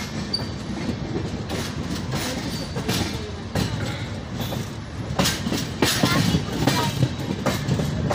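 Passenger train running on the track: a steady low rumble from the coaches, with the wheels clacking irregularly over rail joints.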